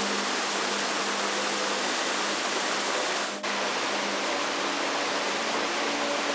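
Small waterfall cascading over granite into a pool: a steady rushing hiss of water. It breaks off for an instant about three and a half seconds in, then carries on slightly softer.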